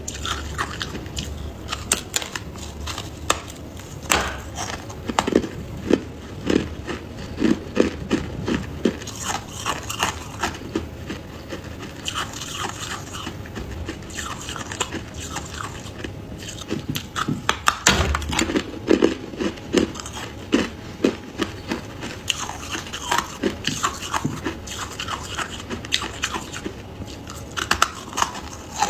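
Chunks of white freezer frost being bitten and chewed, a close run of crisp crunches and crackles that comes in clusters.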